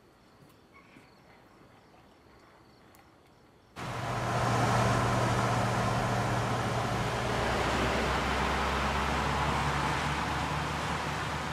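Fire engines driving in convoy on a wet road: a steady low engine drone with tyre hiss on the wet pavement, starting suddenly about four seconds in. Before that, faint insect chirping.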